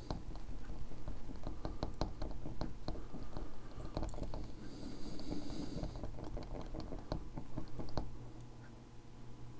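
A small bottle of Testors paint being mixed, clicking and tapping irregularly for about eight seconds, then quieting; the settled pigment is being worked up off the bottom.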